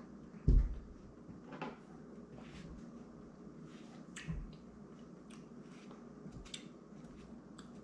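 A glass is set down on a wooden table with a solid knock about half a second in. Then come a few light clicks and taps of a fork against a plate as a slab of cake is cut.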